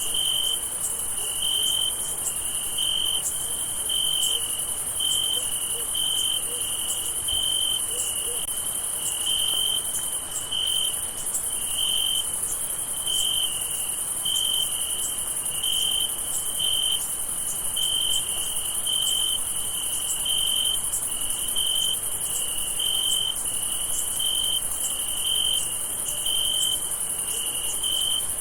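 Crickets chirping on a summer night: one loud cricket trills in short, evenly spaced pulses, about one to two a second, over a steady high-pitched chorus of more distant insects.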